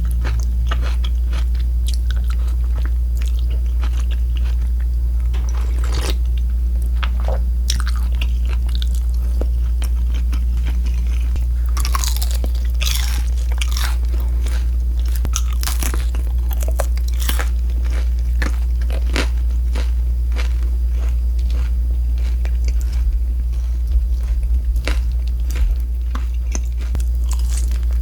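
Close-miked biting, crunching and chewing of crispy fried pork, in irregular crackling bites that come thickest midway. A steady low hum runs underneath.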